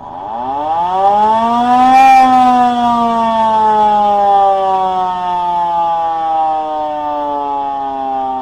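Outdoor warning siren winding up to full pitch in about two seconds, then slowly winding down, its pitch falling steadily as the rotor coasts.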